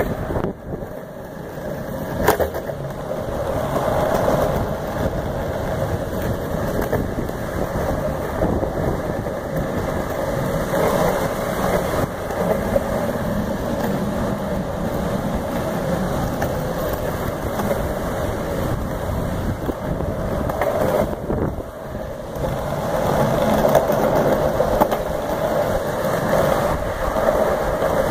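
Longboard wheels rolling over a concrete garage floor: a continuous rumble, with a sharp click a couple of seconds in and brief lulls near the start and about three-quarters of the way through.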